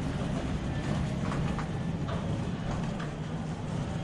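Steady low rumble of a moving train.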